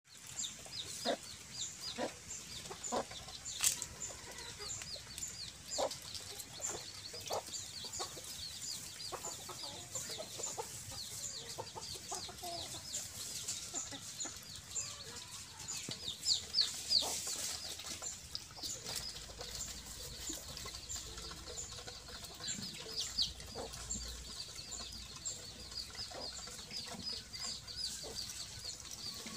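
Farmyard poultry: a continuous stream of rapid, high-pitched peeping from young birds, with scattered short clucks.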